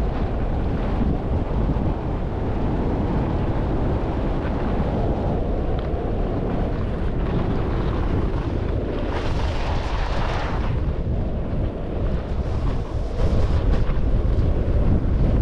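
Wind rushing over the microphone of a camera carried by a skier running downhill, with skis hissing over packed snow. The hiss turns sharper for about two seconds around nine seconds in.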